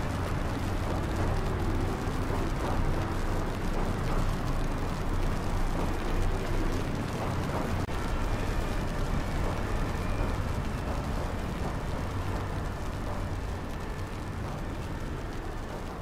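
Steady low rumbling background noise with a deep hum, like a distant city or riot ambience bed, with no speech or music over it. It slowly fades over the last few seconds.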